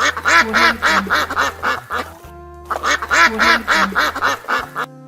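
Duck quacking in two rapid runs of loud quacks, roughly five a second, with a short pause between them.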